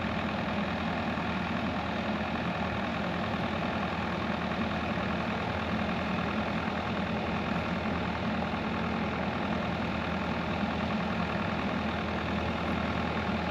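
A machine's engine running steadily at an even idle.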